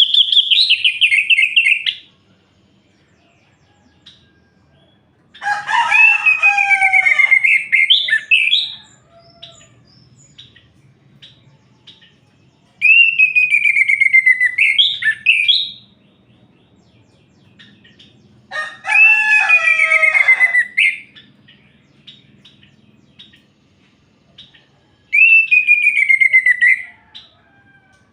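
Orange-headed thrush singing: loud, varied song phrases of two to three seconds, each with a sliding falling note and rapid trills, one ending about two seconds in and four more following, separated by pauses of several seconds.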